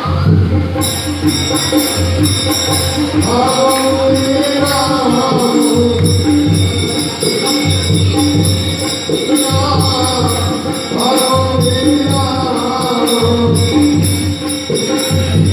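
Live devotional song for a Rasleela stage play: a voice singing drawn-out lines over a steady rhythm with jingling percussion.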